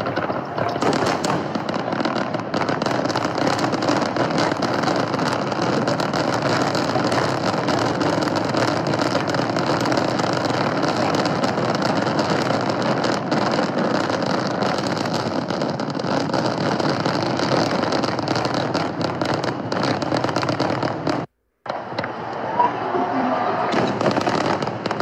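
A fireworks barrage: a dense, continuous crackling and popping from many shells and firecrackers going off together, with no letup. It cuts out for a split second near the end, then goes on.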